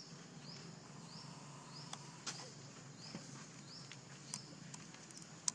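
Outdoor ambience: a high, rising chirp repeated evenly, a little under twice a second, over a steady low hum, with a few sharp clicks, the loudest just before the end.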